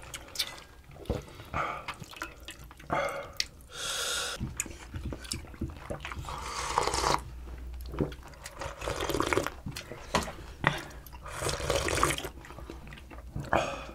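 Pollack stew broth being ladled into a bowl, then slurped from bowls in several separate sips, with small clicks of ladle and spoon.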